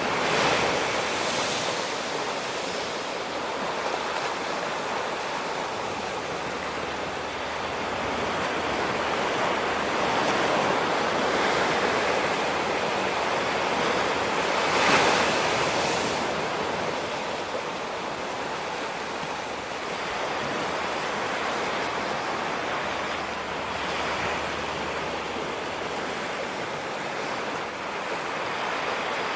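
Ocean surf breaking and washing up on a beach: a steady rushing hiss that swells and ebbs, with one louder wave about halfway through.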